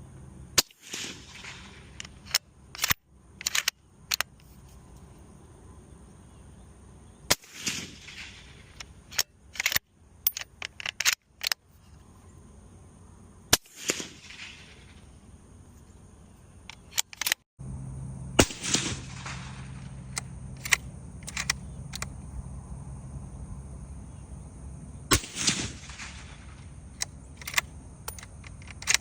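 Suppressed rifle fired through a SilencerCo Hybrid 46 suppressor: six single shots, each a sharp crack with an echoing tail, about six to seven seconds apart in two sets of three. Smaller clicks fall between the shots.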